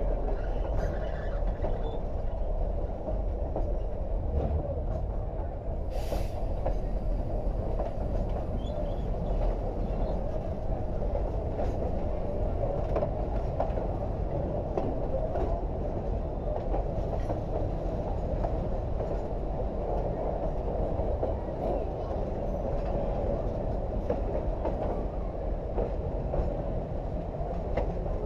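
Durango & Silverton narrow-gauge passenger train rolling along the track, heard from aboard: a steady rumble of wheels on rails with light clicks, and one short sharp noise about six seconds in.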